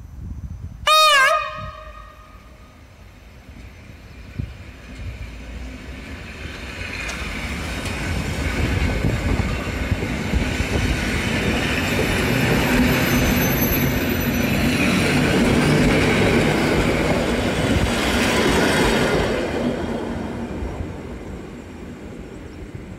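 EN57 electric multiple unit sounding one short horn blast about a second in as it departs, then pulling out and passing close by. Its running noise builds, is loudest as the carriages go past, and fades near the end.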